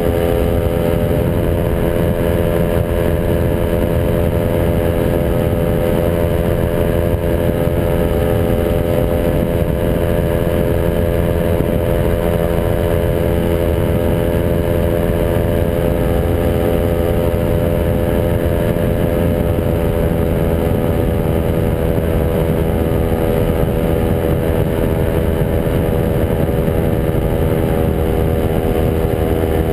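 A Quicksilver MXL Sport ultralight's two-stroke engine and pusher propeller running at one steady pitch in flight, with wind rushing over the microphone.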